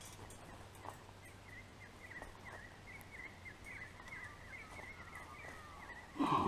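Small birds twittering continuously in the background, a thin stream of quick chirps. Near the end comes a short, louder vocal sound that falls in pitch.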